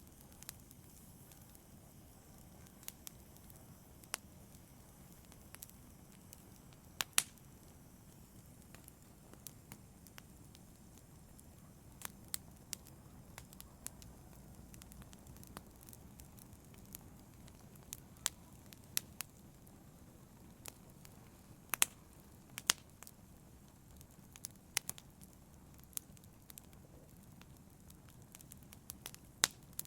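Fire in a fireplace crackling, with irregular sharp pops and snaps over a low, steady rush of the flames.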